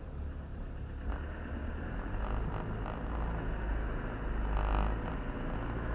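Land Rover Defender crawling slowly over slickrock, its engine a steady low rumble heard from inside the cab. A short higher-pitched sound comes in near the end.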